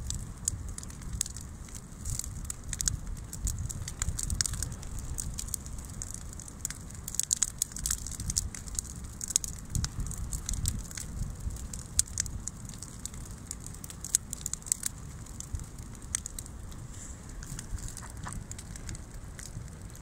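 Brushwood bonfire of dry branches burning, crackling with frequent irregular sharp snaps and pops over a steady low rumble.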